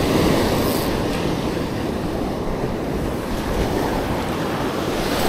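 Surf breaking and washing up on a sandy beach, a steady rush, with wind on the microphone.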